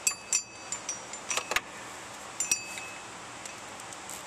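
Irregular metallic clinks with a bright ringing: a chrome ratchet and socket knocking against metal while undoing the 14 mm bolts of a power steering pump through the holes in its pulley. The loudest clinks come about a second and a half in, with one more ringing clink about a second later.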